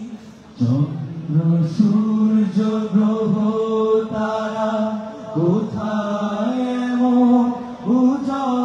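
Group of men singing an Islamic devotional song in chorus through microphones, with long held notes and sliding pitches. The singing breaks off briefly just before a second in, then carries on.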